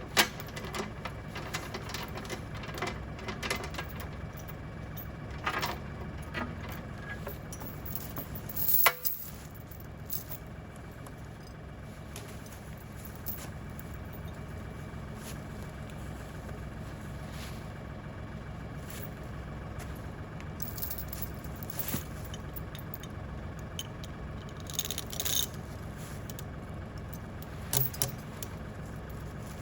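LS tractor's diesel engine idling steadily, with scattered metallic clinks and rattles of a logging chain being wrapped around saw logs. The sharpest clanks come right at the start and about nine seconds in.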